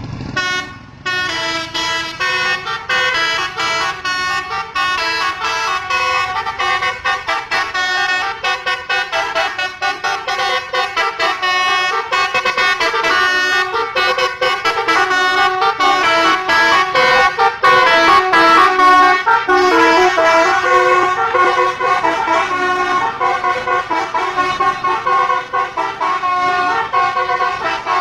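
Bus telolet horn, a set of musical air-horn trumpets, played as a fast tune of short honked notes that jump from pitch to pitch. It grows louder through the middle.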